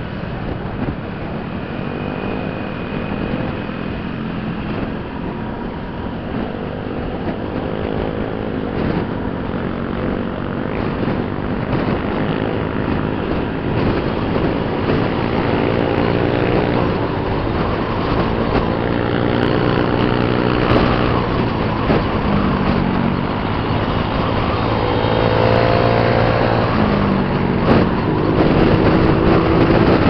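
Honda Click 125i scooter's single-cylinder engine running on the road with wind noise on the microphone. The engine note rises and falls several times as the throttle is opened and eased.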